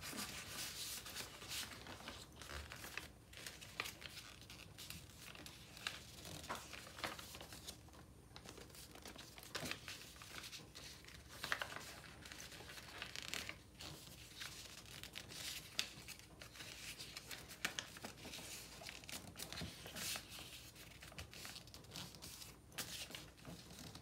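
Sheet of recycled paper being folded and creased by hand: irregular rustling and crinkling, with short crackly strokes as the folds are pressed flat.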